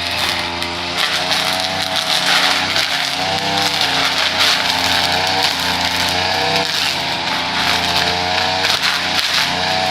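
Small petrol engine of lawn-care equipment running steadily under load, its pitch wavering slightly.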